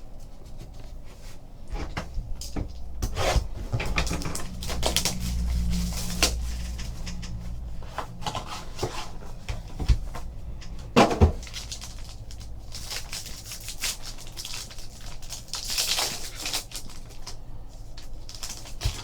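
Trading-card boxes and packs being handled and opened: irregular rustling and scraping of cardboard and wrapping, with a few sharper knocks about halfway through.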